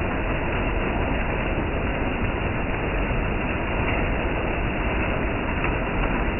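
Heavy rain falling in a downpour: a steady, dense rushing noise with a deep rumble underneath and no let-up.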